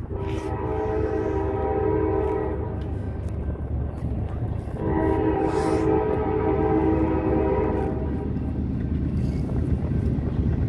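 Freight locomotive's multi-chime air horn sounding two long blasts of about three seconds each, the way a train signals an upcoming grade crossing, over the steady low rumble of the approaching diesel train, which grows louder near the end.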